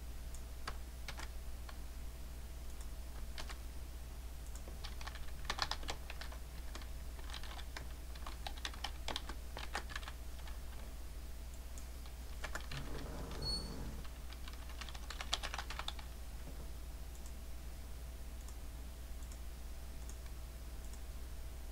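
Typing on a computer keyboard: quick bursts of keystrokes with pauses between them through the first sixteen seconds or so, then only a few scattered clicks. A faint steady hum runs underneath.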